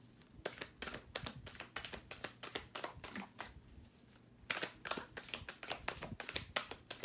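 A deck of cards being shuffled by hand: a rapid, irregular run of soft card clicks and slaps, with a brief lull a little past the middle.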